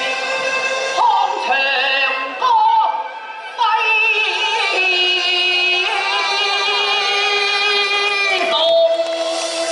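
Cantonese opera singing: a high voice sliding and bending between held notes over the accompanying ensemble, with a brief drop about three seconds in and a sudden change of sound near the end.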